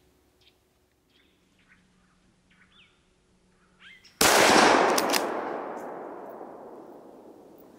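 A single bolt-action hunting rifle shot about four seconds in, its echo fading slowly over about three seconds. Faint bird chirps come before the shot.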